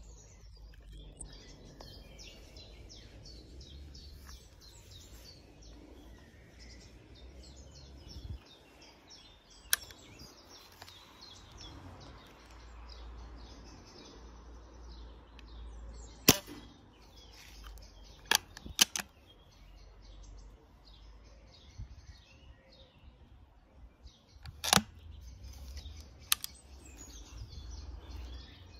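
Weihrauch HW30s spring-piston air rifle being fired: sharp cracks, the loudest about sixteen and twenty-five seconds in, with several lighter clicks between them. Birds chirp throughout.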